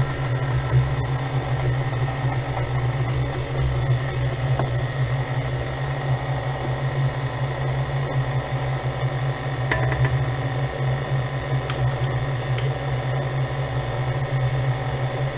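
Electric stand mixer switched on and running steadily, its flat beater creaming a butter, sugar and egg-yolk cake batter; the motor hum starts abruptly and holds an even pitch. A few light clicks about ten seconds in.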